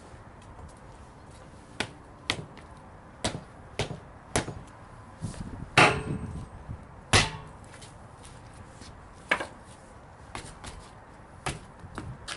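Hand tools striking and knocking during work on a truck tire: about ten sharp knocks at uneven intervals, the two loudest about six and seven seconds in.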